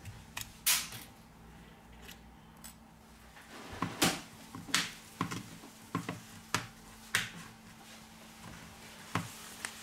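Sharp plastic clicks and snaps, about a dozen at irregular intervals, as a plastic guitar pick is worked into the seam of a Xiaomi Redmi 6A's back cover and prises its clips loose.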